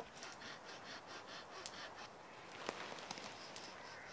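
A tarp being handled and spread out: rustling fabric with a few sharp snaps and clicks, after a quick run of evenly spaced rasps in the first second.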